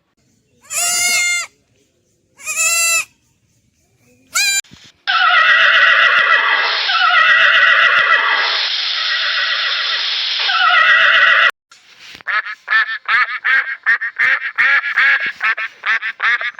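A series of animal calls: two drawn-out bleat-like calls and a short one, then several seconds of many overlapping calls that cut off suddenly, then a rapid run of short repeated calls.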